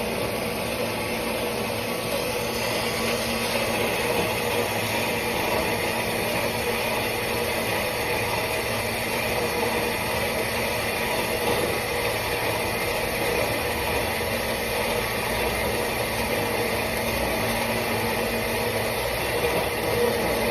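ENCO model 137-3150 metal-cutting band saw running steadily under power, with an even mechanical hum.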